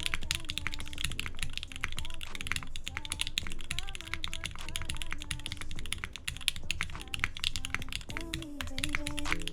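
Fast continuous typing on a custom mechanical keyboard with an aluminium plate, Tangerine linear switches and GMK keycaps: a dense, irregular run of keystroke clacks, with quiet background music underneath.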